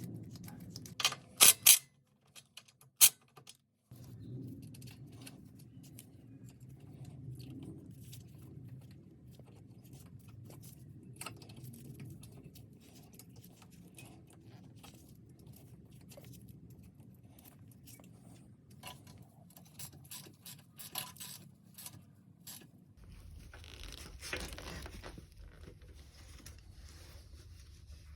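Hand grease gun being handled and worked on a tie rod end: scattered metallic clicks and scrapes over a low steady hum. There is a sharp click about three seconds in and a short rustling burst near the end.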